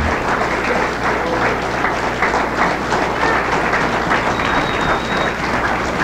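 Audience applauding steadily, a dense patter of many hands clapping.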